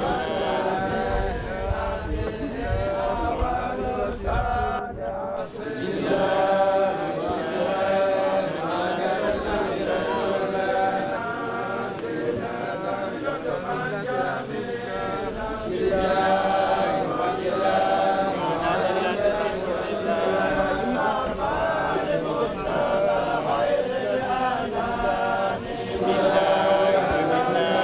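A group of mourners' voices chanting together in a repeated religious funeral chant. There is a low rumble in the first few seconds.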